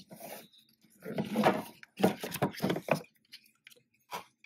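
Hands opening a rigid cardboard album box and sliding out the paper booklet inside. There are two spells of cardboard and paper rubbing and scraping, with small knocks, and a short knock near the end.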